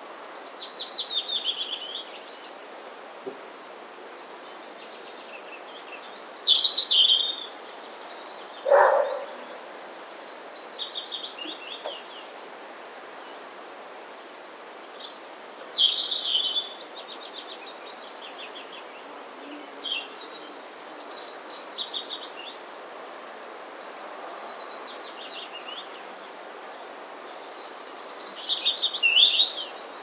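A songbird singing short, fast trilled phrases that fall in pitch, about six of them, a few seconds apart, over a steady hiss of wind noise. A single short, lower call sounds about nine seconds in.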